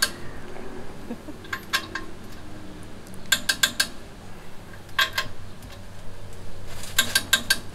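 Torque wrench ratcheting on the steering-arm nuts of a truck's front steering knuckle: four short bursts of sharp metallic clicks about one to two seconds apart, as the nuts are tightened toward the kit's 90 lb spec.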